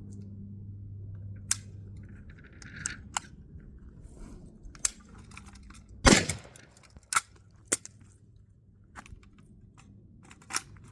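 Metal clicks and clacks of an AK63F rifle being worked during a reload: safety, magazine and charging handle. About six seconds in comes one loud shot, followed by a few sharper knocks.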